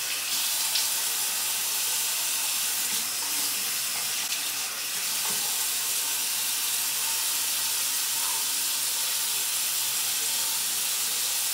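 Bathroom sink tap running steadily into the basin, an even rush of water with no break.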